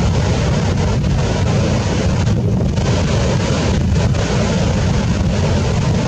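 Wind buffeting the microphone as a steady low rumble, over the wash of breaking ocean surf.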